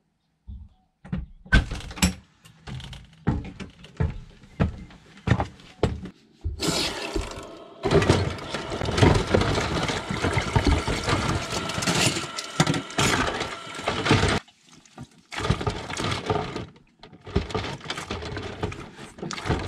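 A string of separate knocks and clatters, then a kitchen faucet running water into a stainless steel sink while dishes clatter and clink against each other, the water stopping briefly twice near the end.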